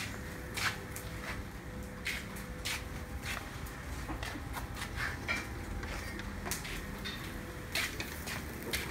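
Footsteps on a tiled floor: light, sharp steps about every two-thirds of a second at first, then more irregular, over a low background hum with a faint steady tone in the first few seconds.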